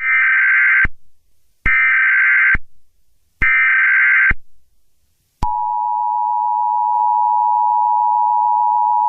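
Emergency Alert System broadcast: three short bursts of digital SAME header data tones, each just under a second long, then the steady two-tone EAS attention signal, which starts about five and a half seconds in and holds.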